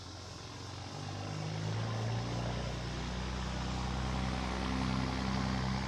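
An engine drones at a low pitch, growing louder over the first two seconds and then holding steady.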